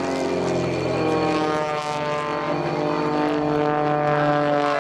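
Propeller aircraft engine running, a steady buzzing hum made of several tones whose pitch shifts slightly.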